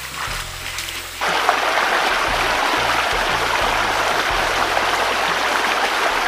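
Shallow river water rushing over rocks: a loud, steady rush that cuts in about a second in. Background music with a low bass line plays throughout.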